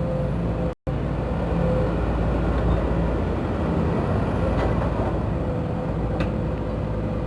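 Case CX210B excavator's diesel engine and hydraulic main pump running steadily under test, without the growling noise from the main pump that came before the pump was taken apart: a smooth, even sound. The sound breaks off for a split second about a second in.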